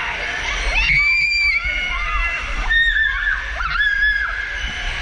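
Riders screaming in a raft as it starts down an enclosed waterslide tube: about three short, high-pitched screams over rushing water.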